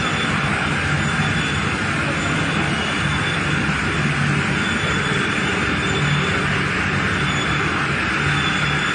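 Spiral boiling machine for meatballs and its roller conveyor running: a steady, loud mechanical din with a low hum underneath that swells now and then.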